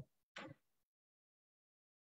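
Near silence, the call audio gated to nothing, apart from one short faint sound just under half a second in.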